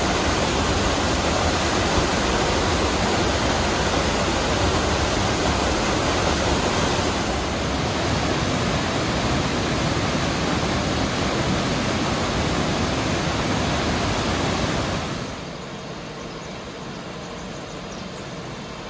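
Waterfalls: a loud, steady rush of falling water. It shifts slightly at about seven seconds in, then becomes clearly quieter from about fifteen seconds in, where a waterfall is heard from farther off.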